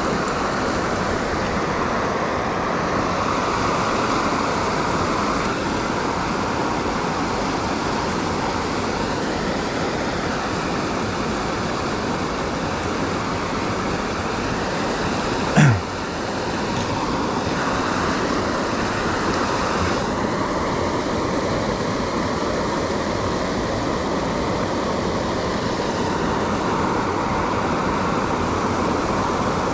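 Steady rushing of river water, with one brief loud sound about halfway through that drops sharply in pitch.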